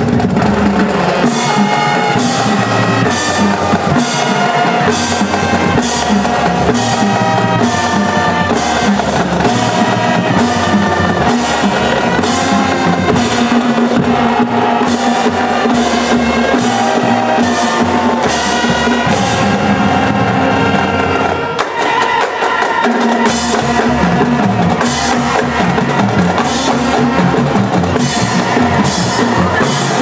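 Marching band playing: brass holding and moving through sustained notes over marching percussion, snare and bass drums, keeping a steady beat. The low end briefly drops away about two-thirds of the way through before the full band returns.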